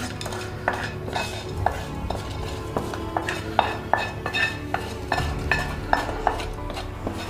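Wooden spatula scraping and knocking against a black kadai as fried tempering is scraped out, with metal pot-lifting tongs clinking against the pan: an irregular run of sharp clicks and taps, some with a short metallic ring.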